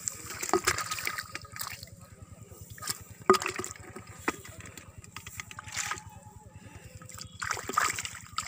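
Hands splashing and sloshing in shallow muddy water while grabbing at fish, in irregular splashes. The sharpest splash comes about three seconds in, and there is a busier flurry near the end.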